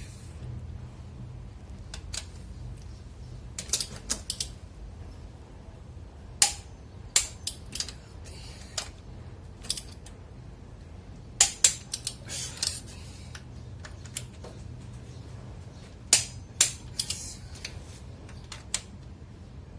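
Sharp metallic clicks of a torque wrench and its ratchet on the cylinder head bolts of a Mercedes M111 engine as the bolts are tightened to torque, coming irregularly, some singly and some in quick groups of two to four. A steady low hum runs underneath.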